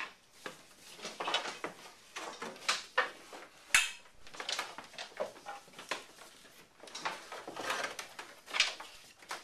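Wooden go bars clattering and knocking as they are sprung into place one after another, clamping a harpsichord soundboard down onto its glued frame. Irregular knocks and clicks, the sharpest about four seconds in.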